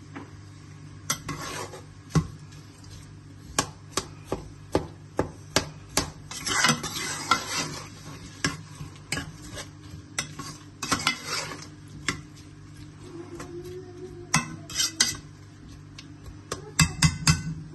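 A metal spoon stirring and scraping onions and spices sizzling in oil in a cooking pan, with frequent sharp clicks of the spoon against the pan and a quick run of taps near the end.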